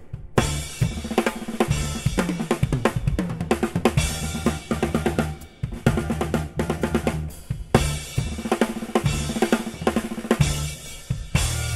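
Drum kit played live, a busy run of fast strokes across the drums and cymbals.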